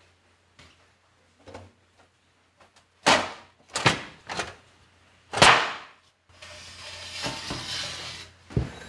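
Several sharp knocks and scrapes of hard parts being handled, then a couple of seconds of steady scrubbing noise and one more knock near the end.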